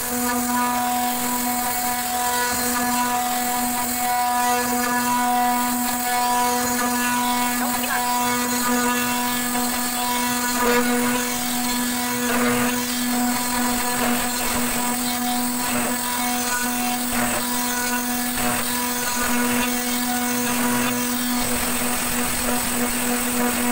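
CNC milling machine spindle running steadily, its end mill cutting a lock slot in an aluminium sliding-door profile: a constant pitched whine with a high hiss and scattered faint scrapes of the cut.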